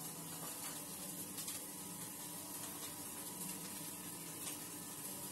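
Steady sizzle of a whole eggplant frying in oil in a hot pan, with a faint steady hum underneath.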